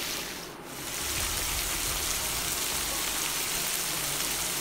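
Sliced onions sizzling in hot mustard oil in a wok, a steady frying hiss. It drops away briefly about half a second in, then comes back and holds steady.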